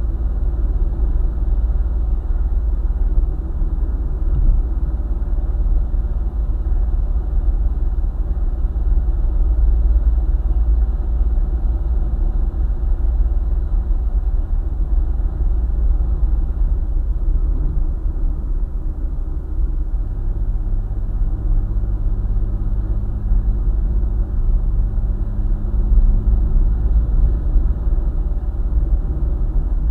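Steady road rumble of a car driving on a highway, tyre and engine noise strongest in the low bass. About two-thirds of the way through, a steady engine hum comes in on top of the rumble.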